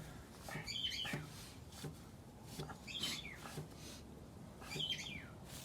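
A bird chirping: short high calls, each a quick falling note, repeated about every two seconds.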